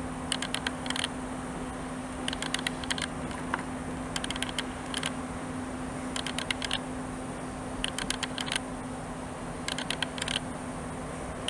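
Slow-moving electric locomotive-hauled passenger train, a Class 90 with coaches: clusters of sharp clicks, like wheels crossing rail joints, recur about every two seconds over a steady low hum.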